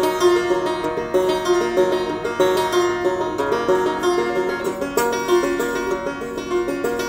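Banjo played as an instrumental, a steady, fast run of plucked notes.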